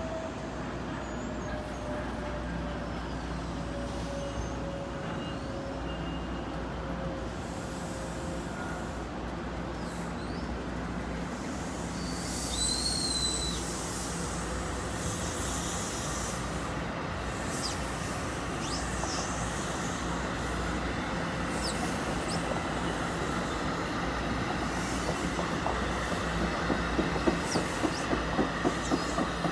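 Double-deck commuter train pulling out of the station and rolling past, a steady rumble with a low whine that slowly falls in pitch over the first several seconds. A brief high wheel squeal comes about halfway through. Near the end the wheels click over the rail joints, about twice a second and growing louder.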